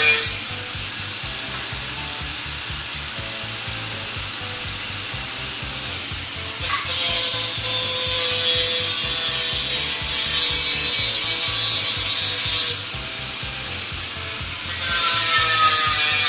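A power tool working steel, giving a steady rasping hiss, with background music underneath.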